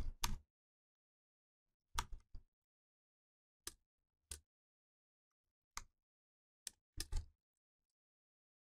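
Sparse computer keyboard keystrokes and mouse clicks: short, faint clicks, some single and some in quick groups of two or three, spread a second or two apart.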